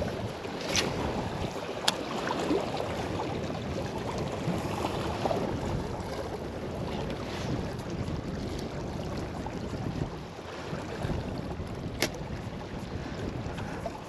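Steady wind buffeting the microphone over river water washing against a rocky bank, with a few short, sharp clicks.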